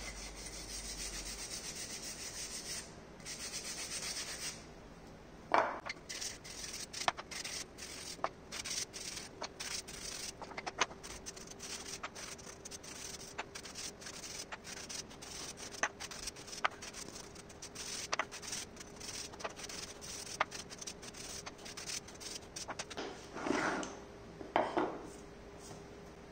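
Plywood blocks hand-sanded with a sanding block: quick back-and-forth rubbing strokes for the first few seconds, then lighter intermittent sanding with many small knocks and taps of wood blocks on the bench, and two longer scrapes near the end.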